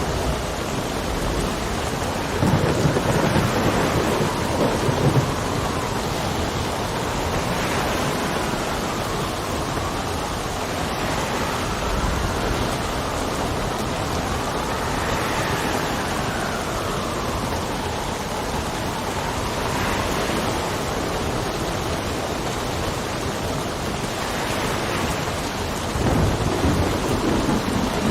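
Steady rain with wind whistling in slow rising and falling tones, and low thunder rumbles about three seconds in and again near the end.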